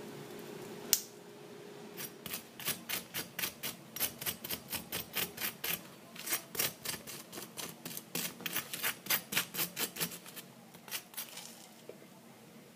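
Quick, regular clicking strokes, about four to five a second in runs for some eight seconds, typical of a utensil beating batter against a dish, after one sharp click and a fading hum.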